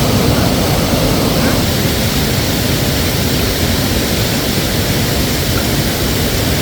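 Steady rushing of a mountain river: a loud, even noise that does not change.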